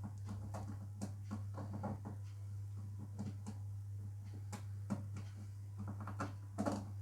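Scattered light clicks and knocks at irregular intervals, as small objects are handled and set down, over a steady low hum.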